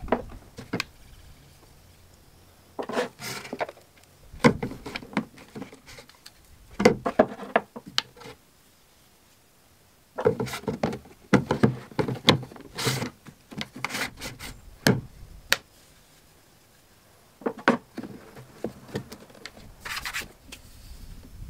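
Large PVC tee fittings and pipe handled on a plywood workbench. The clusters of knocks, taps and scrapes of plastic on wood come with quiet gaps between, and there is rubbing as the glued pipe pieces are pushed into the fittings.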